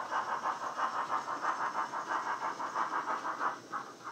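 Sound-decoder steam exhaust beats from a Hornby Crosti 9F model locomotive played through its onboard speaker, a steady chuff at about five beats a second as the train pulls away. Near the end the beats fade and become irregular.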